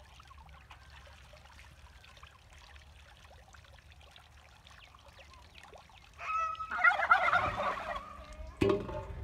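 Domestic turkey tom gobbling: a short call about six seconds in, then a loud rapid rattling burst lasting about a second. Near the end comes a sharp metallic knock from the steel bowl being handled at the water pipe.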